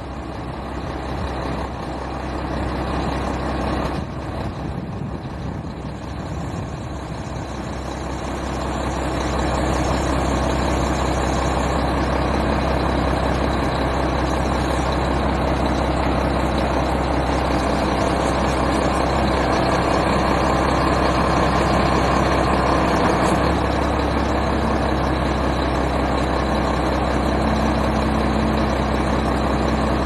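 1999 Mack CL713 logging truck's diesel engine running steadily while it drives the loader crane's hydraulics as the boom is swung and folded. The sound grows louder about a third of the way in and then holds steady.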